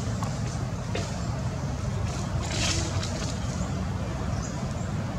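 Steady low rumble, with a brief rustling hiss about two and a half seconds in.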